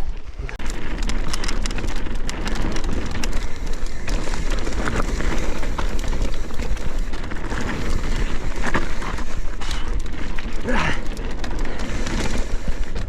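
Mountain bike rolling along a gravel trail: steady crunch and crackle of tyres on loose ground with rattling from the bike, over a deep wind rumble on the microphone.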